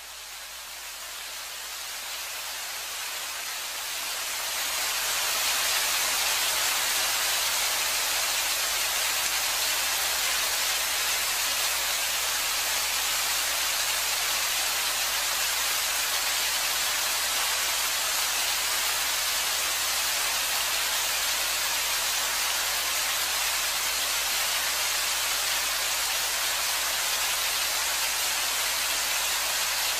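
Recorded rain on the performance soundtrack: a steady hiss that fades in over the first five seconds, then holds steady.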